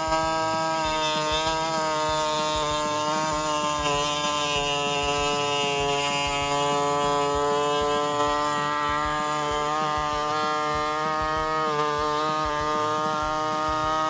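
Small handheld electric power tool running steadily with a high motor whine as its bit drills and cuts into plastic trim; the pitch dips slightly now and then under load and falls away as the motor winds down at the very end.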